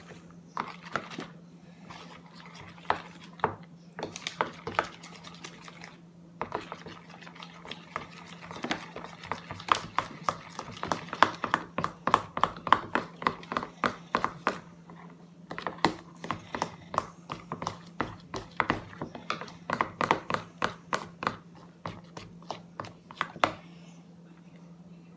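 Sticky homemade slime being mixed and worked, giving quick wet clicks and squelches, a few at a time at first and then in fast runs of several a second, which stop near the end. A faint steady hum runs underneath.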